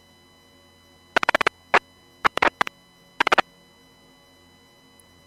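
Marine VHF radio feed between transmissions: a few short bursts of static crackle, starting about a second in and ending a little after three seconds, over faint hiss.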